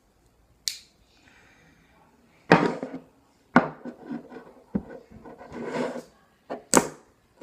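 A pocket knife being handled: a string of sharp clicks and knocks, about six over several seconds, with rubbing between them.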